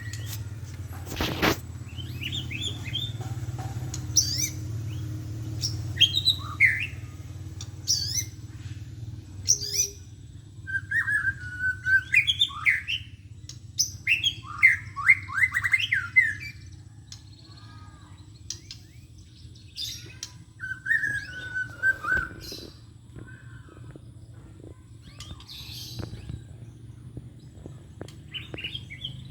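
White-rumped shama singing a string of short, varied whistled and chirped phrases with pauses between them, while the bird is still in moult, over a steady low hum.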